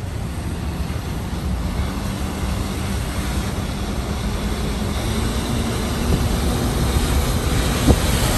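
Steady rumble and hiss of a vehicle on the move, heard from inside, growing slightly louder toward the end, with a faint steady hum and a single click near the end.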